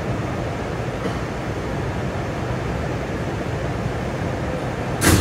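Steady rumble and hum inside an R211S subway car of the Staten Island Railway, with one sharp click near the end.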